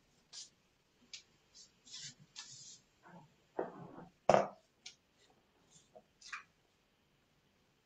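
Scattered light clicks and rustles of handling, with one louder knock just after four seconds in.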